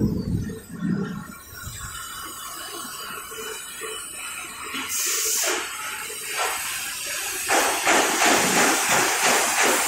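Stainless steel sink seam welding machine in a workshop: a short hiss about halfway through, then a louder, fast rattling machine noise starting near the end.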